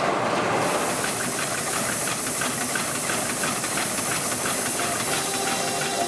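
Steam hissing loudly from the Burrell traction engine driving the sawmill, starting about half a second in, over a rapid, even beat. Music fades in near the end.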